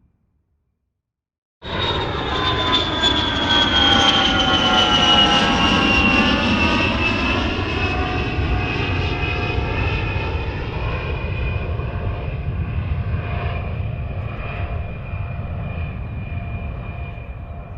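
Jet aircraft sound effect: it cuts in suddenly after a moment of silence as a loud rush with high whining tones that glide downward, like a jet passing, then slowly fades.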